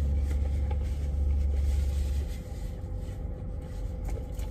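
Low vehicle engine rumble heard inside a semi-truck cab, dropping away about two seconds in, over a faint steady hum and a few light rustles.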